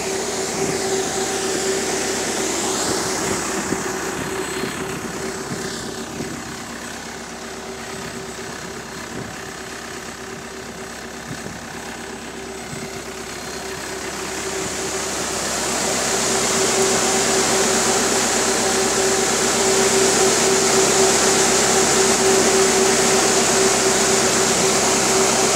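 Electric radiator cooling fan of a New Routemaster hybrid double-decker bus running steadily: a rush of air with a constant hum. It grows louder about halfway through and stays loud to the end.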